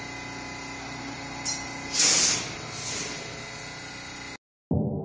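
Stationary New York City subway train humming steadily with several fixed tones, then compressed air hissing out in short bursts, a small one about a second and a half in, the loudest at two seconds and a weaker one just before three seconds. The sound cuts off suddenly near the end.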